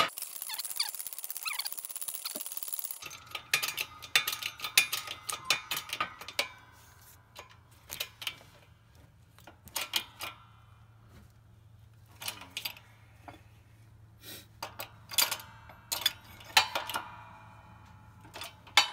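Shop press working a homemade tool down into a connecting rod's small end to press in a new wrist-pin bushing, with many sharp, irregular metallic clicks and knocks over a steady low hum. A hiss is heard for the first few seconds.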